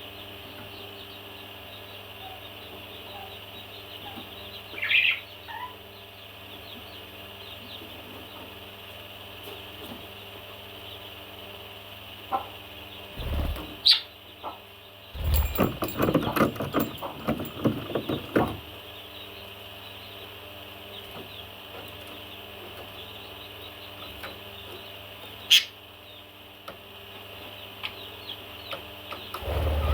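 A parrot giving a few short, sharp chirps spread far apart. There is a burst of rapid rustling, like flapping or scuffling, about halfway through, over a steady background hum.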